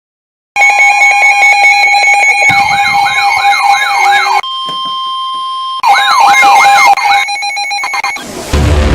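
Layered electronic alarm tones. Steady beeping tones are joined twice by a fast up-and-down electronic siren sweeping two or three times a second, with a single steady tone sounding alone between the two siren runs.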